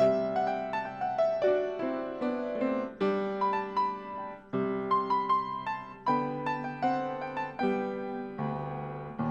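Solo piano playing a slow piece of chords and melody, each note struck and then fading, with brief pauses between phrases.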